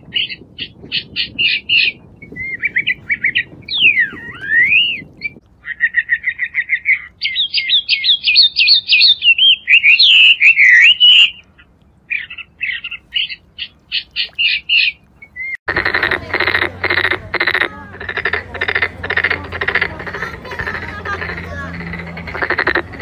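Birds chirping and trilling, with quick whistled rising and falling glides. About two-thirds of the way through the birds stop and frogs start croaking in a steady rhythm, two or three croaks a second.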